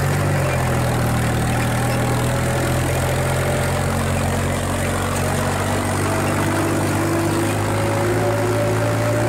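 Tractor engine running steadily with an even low hum.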